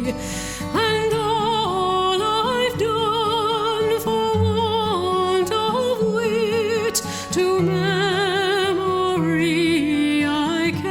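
Background music: a slow ballad with a held, vibrato melody line over sustained accompaniment.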